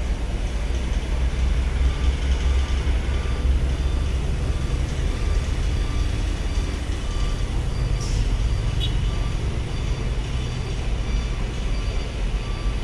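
Trucks and cars idling and rolling through a toll gate lane: a steady low engine rumble with traffic noise, and a faint short beep repeating now and then.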